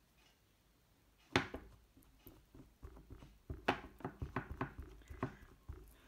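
Clear acrylic stamp block with a rubber stamp being tapped onto an ink pad to ink it: one sharp knock about a second in, then a run of quick light taps, about three or four a second.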